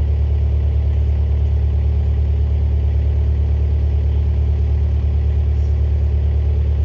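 Skid steer engine running steadily with a low, even drone.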